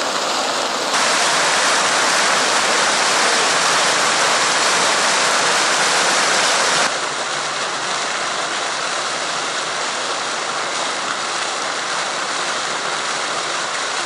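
Fountain jets splashing down into their stone basins: a steady rush of falling water. It grows louder about a second in and drops to a lower, steady level about seven seconds in.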